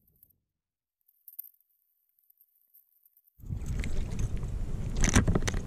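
Near silence for about three and a half seconds, then a sudden low rumbling noise with a few sharp knocks: wind buffeting the action camera's microphone while it is handled on the water.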